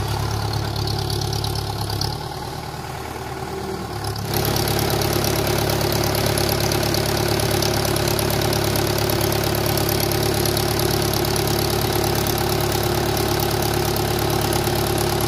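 Mahindra Yuvo 475 tractor's diesel engine running steadily as it drives its rear tyre through wet mud, growing louder about four seconds in.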